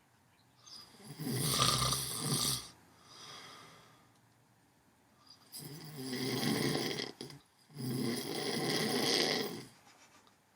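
A man snoring loudly: three long, rasping snores of a second and a half to two seconds each, with a softer breath after the first.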